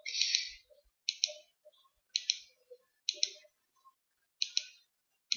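Computer mouse clicking, a quick pair of sharp clicks about once a second, six times, as moves are stepped back in a chess program.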